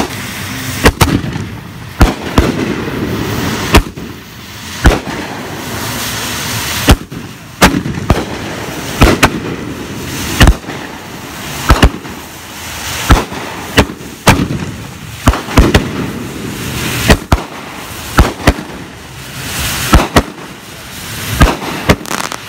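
Aerial fireworks bursting overhead: a run of sharp bangs, about one a second and closer together in places, with a continuous noisy rush between them.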